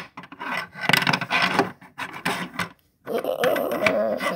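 Plastic toy figures scraping and knocking against a toy house as hands move them about: a sharp click at the start, a second of scraping, then a longer, louder rasping sound for the last second and a half.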